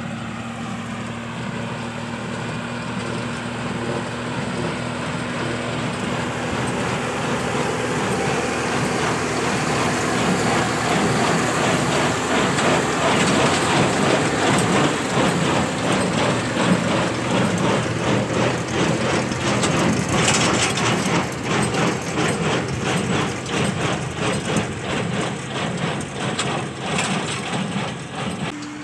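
Tractor engine running steadily while a Massey Ferguson 1840 small square baler works behind it with a fast rhythmic clatter. The sound grows louder over the first half or so, as if the outfit draws closer.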